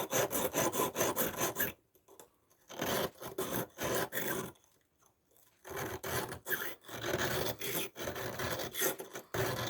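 Victorinox pocketknife blade stroked back and forth on a coarse sharpening stone, several rasping strokes a second in three runs with two short pauses. The edge is being ground down to shape on a stone the sharpener calls very poor.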